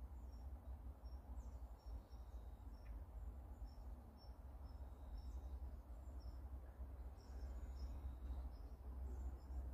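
Quiet pondside ambience: a steady low rumble with many short, faint high-pitched chirps scattered through it.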